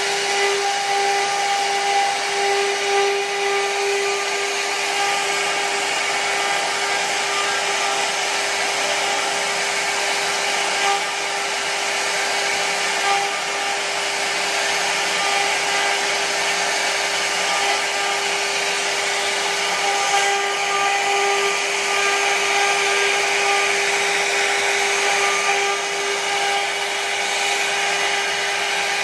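CNC router spindle running at a steady high whine while its carving bit cuts a relief into wood, with a continuous hiss of cutting over the tone.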